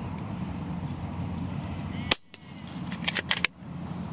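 A single shot from an FX Crown .22 PCP air rifle about two seconds in, a short sharp crack, with a quick run of about four sharp knocks a second later.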